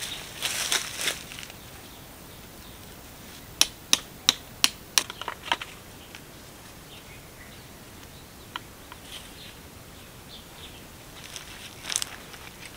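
Footsteps crunching on dry leaves and loose stones, then a quick run of six sharp clicks, then a quiet stretch before more crunching steps near the end.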